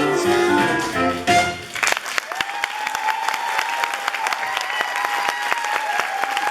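The instrumental accompaniment of a stage-musical song plays its closing notes and ends about two seconds in. An audience then breaks into applause, with a long steady tone held above the clapping.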